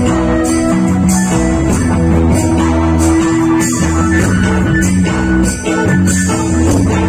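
Live band music: guitar over a drum kit, played loud through a stage sound system.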